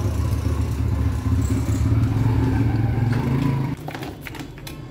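Steady low mechanical hum that cuts off suddenly about three and a half seconds in, followed by a few sharp clicks.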